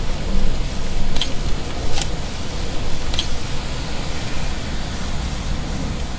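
Thunderstorm noise at night: a steady low rumble with hiss over it, and three sharp taps about one, two and three seconds in.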